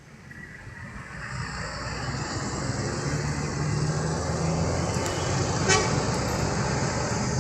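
High-deck coach bus approaching, its engine and road noise growing steadily louder, with a brief rattling tick near the end.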